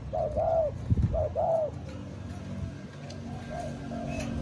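Spotted dove cooing: repeated arching coos in short groups, loud in the first two seconds and fainter near the end. The bird is a freshly caged decoy, already calling. A low thump comes about a second in.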